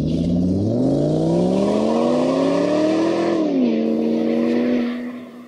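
Car engine accelerating: its pitch climbs steadily for about three seconds, drops sharply as at a gear change, holds steady, then fades out near the end.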